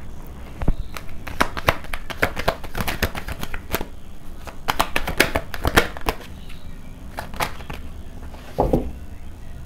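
A tarot deck being shuffled by hand: a fast, uneven patter of card clicks for about six seconds, then a few scattered clicks as a card is drawn and dropped onto the spread.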